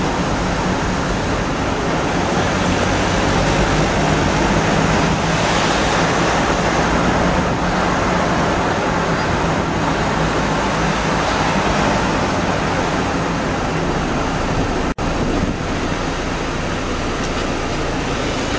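Steady running noise of a vehicle heard from inside: a low engine hum under a continuous rush of wind and road noise, dropping out for an instant about fifteen seconds in.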